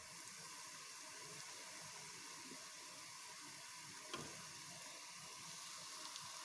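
Faint, steady sizzling of spinach-and-wheat dough pieces deep-frying in hot oil, with one small click about four seconds in.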